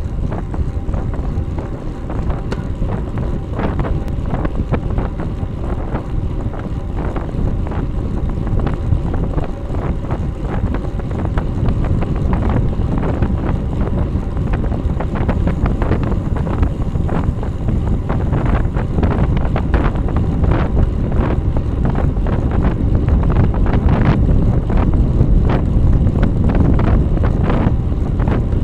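Wind rushing over the microphone of a rear-facing bike camera with tyre and road noise, on a road bike riding at about 32 to 35 km/h, with frequent short knocks and rattles throughout. It grows a little louder towards the end.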